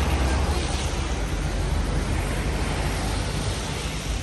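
Van driving past on a wet road, with engine rumble and tyre hiss, over steady street traffic noise.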